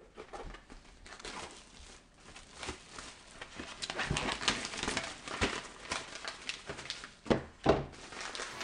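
Painting knife scraping and dabbing texture paste: a run of small scratchy clicks that grows busier about four seconds in, with two dull knocks near the end.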